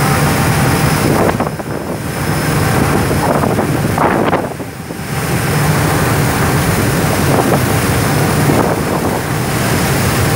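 A boat's engine running steadily, with wind buffeting the microphone and the rush of the wake. Twice, about one and a half and four and a half seconds in, the noise drops briefly.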